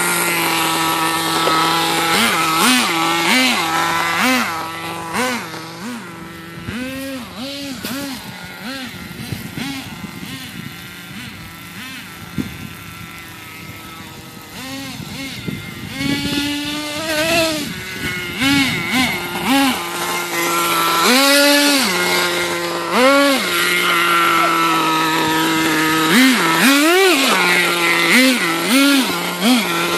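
Radio-controlled monster truck's motor and gears whining, revved up and down in many short bursts over a steady whine. It is quieter for a stretch in the middle, then the bursts come thick and fast again.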